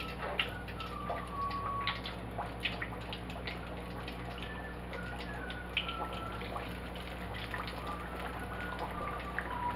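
Flour-dredged raw chicken thighs frying in hot oil in a skillet: a steady sizzle with many small crackles and pops. The chicken has only just gone in; the frying quiets down once the chicken is done.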